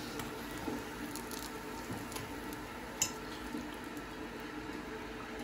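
Sfenj, rings of Moroccan yeast dough, frying in hot oil with a steady low sizzle and a sharp click about three seconds in.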